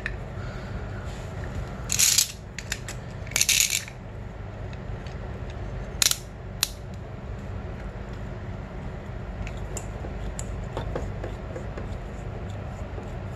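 Metal clinks and rattles of brake pads and a caliper piston compressor tool handled against a dirt bike's front brake caliper. There is a clatter about two seconds in, another about three and a half seconds in, and two sharp clicks around six seconds in, over a steady low hum.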